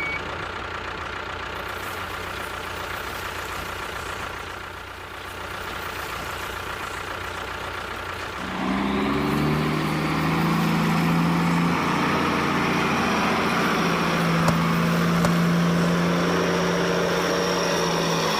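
A vehicle engine runs steadily at a low level. About eight and a half seconds in, a louder engine comes in and keeps running at an even pitch.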